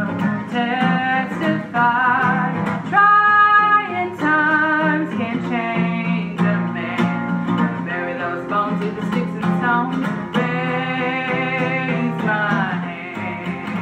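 A woman singing over a strummed acoustic guitar, holding long notes with vibrato.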